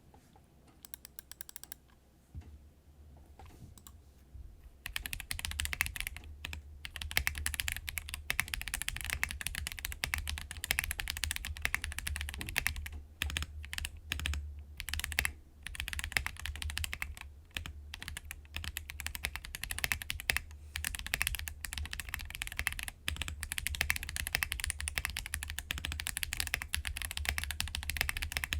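Typing on a KBD67 Lite custom mechanical keyboard with lubed Holy Panda tactile switches on a polycarbonate plate: a few scattered keystrokes at first, then from about five seconds in fast, continuous typing with brief pauses.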